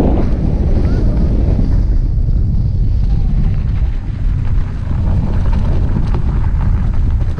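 Wind buffeting the microphone: a loud, steady low rumble with a hiss over it, a little lighter after about the first second.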